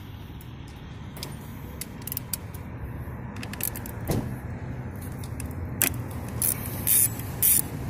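Socket wrench on an extension working a car battery terminal nut: scattered metallic clicks and clinks, with a few louder ratcheting strokes near the end, over a steady low background rumble.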